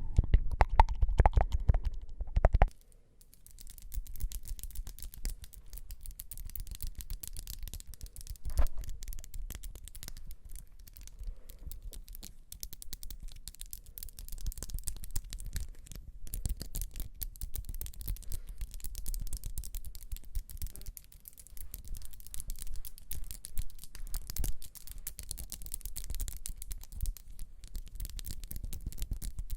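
Close-miked ASMR tactile sounds: fine, rapid scratching and brushing against the microphone. For the first couple of seconds a heavier, louder rubbing with a deep rumble, which stops suddenly.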